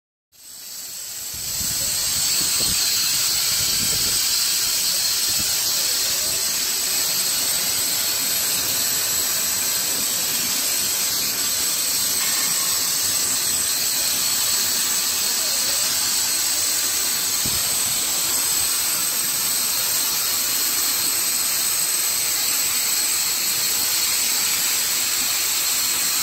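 CO2 laser cutter running on wood, a steady, loud, high-pitched hiss from its air flow that comes on suddenly and then holds even.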